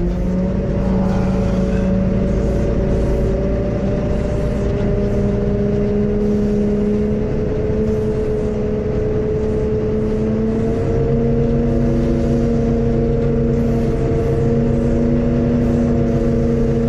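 John Deere motor grader's diesel engine running steadily, heard from inside its cab, its pitch edging up slightly about ten seconds in.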